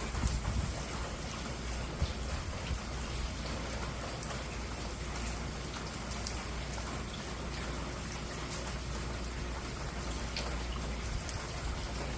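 Steady rain falling, with scattered individual drops ticking sharply now and then, over a low steady rumble.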